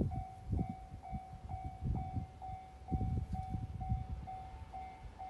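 Japanese level-crossing alarm ringing steadily, about two rings a second, signalling that a train is approaching. Gusts of wind buffet the microphone underneath.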